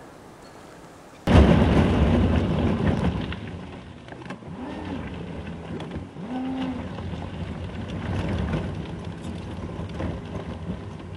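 A vehicle driving on a dirt logging road, heard through a dashcam: loud tyre and road rumble that starts suddenly about a second in, with a couple of brief rising-and-falling whines midway. Before it, a quiet outdoor hush.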